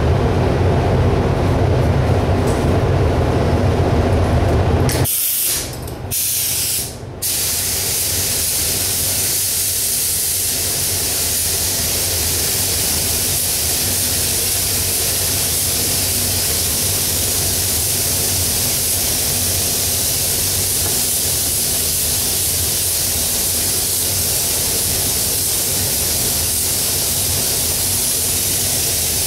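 A low steady rumble for about five seconds, then a gravity-feed paint spray gun hissing with compressed air: two short bursts, then one long steady hiss as a coat of paint is sprayed onto the bumper and grill.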